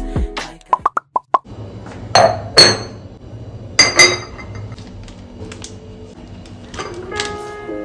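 Ceramic cup and saucer clinking as the cup is set down, three sharp ringing clinks about two, two and a half and four seconds in. Four short high pips come just before them, near the start.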